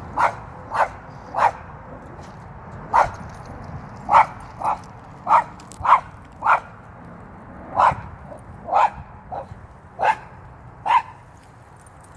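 A dog barking repeatedly, about fourteen sharp barks at an uneven pace, at a squirrel teasing it from up in a tree.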